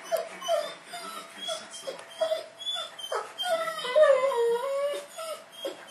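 Rottweiler whining in a run of short, high cries that slide in pitch, about two a second, with one longer drawn-out whine about four seconds in.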